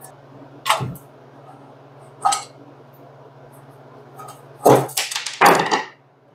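Tools and metal parts knocking and clinking against a vintage Hoover bench grinder as its base is taken off: a few single knocks, then a quicker cluster of them near the end.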